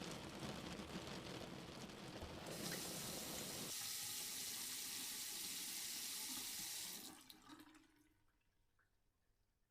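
Water running from a tap as a steady hiss that turns brighter about two and a half seconds in, then dies away around seven seconds as the flow stops.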